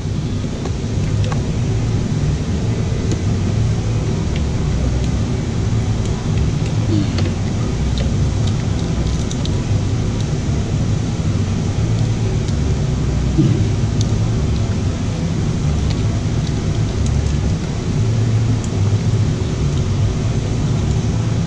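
A steady low rumble, with scattered light clicks and rustles as plastic wiring connectors and corrugated wire loom are handled inside an outboard motor's engine bay.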